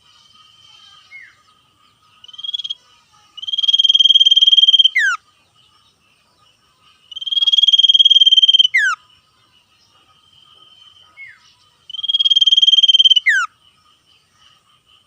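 Common iora (sirtu) singing: three long, fast trills of about a second and a half each, each ending in a sharp downward-sliding whistle. A faint steady high-pitched drone runs underneath.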